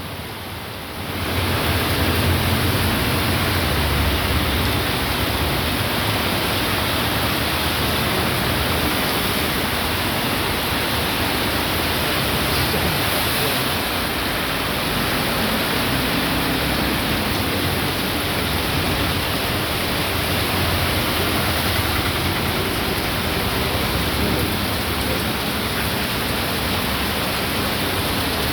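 Heavy rain falling steadily, a dense even hiss that swells up about a second in and then holds.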